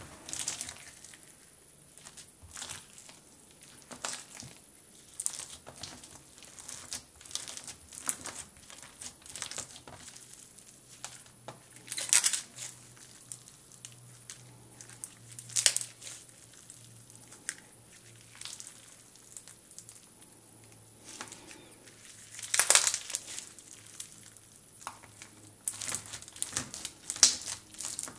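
Fishbowl slime, clear glue slime packed with small plastic fishbowl beads, being stretched, squeezed and kneaded by hand, giving irregular crunching and crackling. The loudest crunches come about twelve, sixteen and twenty-three seconds in, with a quicker run of them near the end.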